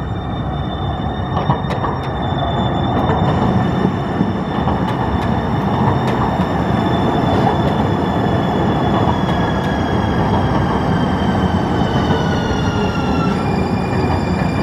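San Diego Trolley light rail train rolling past close by: a steady rumble of wheels on the rails with a high whine in several tones that slowly falls in pitch and drops abruptly near the end. A couple of sharp clicks sound about a second and a half in.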